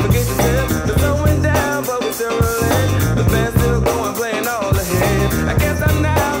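Background music: a rock song with guitar over a steady, repeating bass line.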